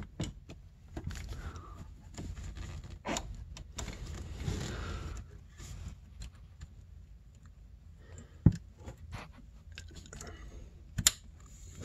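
Hands fitting a retainer clip over the power valve cable ends at a snowmobile's servo motor: scattered light scraping and rattling of small parts, with a sharp click about eight and a half seconds in and another near the end.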